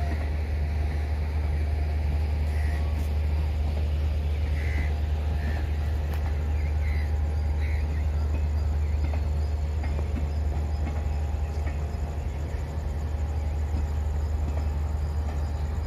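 Steady low rumble and hum of a train at the station platform, holding level throughout, with a few faint chirps in the first half.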